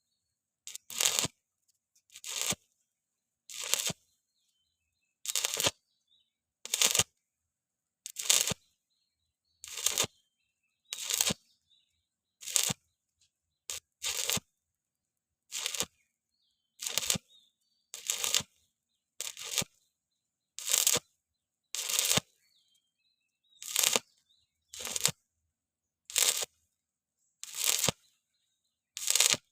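Electric arc welding on thin 1.6 mm square pipe, done in short on-off strikes: a brief crackling arc about every second and a half, with silence between, over and over. Welding thin-wall tube in short intermittent arcs keeps it from burning through.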